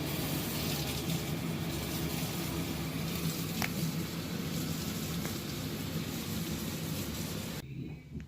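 LG WaveForce top-load washing machine running with a steady rushing noise over a low hum, cutting off suddenly near the end. The owner takes the noise for a failing clutch assembly.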